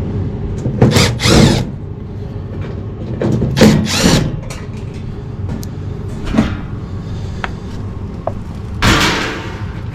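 Cordless drill or nut driver backing out the screws on a gas furnace's access panel: several short bursts of the motor spinning up and down, over a steady low hum.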